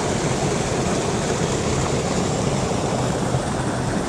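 Water rushing out of a spillway and churning into foam in the creek below, a loud, steady rush.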